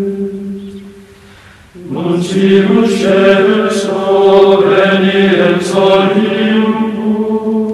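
Chanted vocal music: voices holding long, sustained notes, which fade out about a second in and start again just before the two-second mark.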